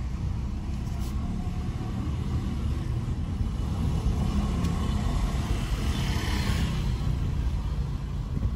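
Road noise of a car heard from inside the cabin while driving at low speed: a steady low rumble of engine and tyres on pavement, with a brief rise of hiss about six seconds in.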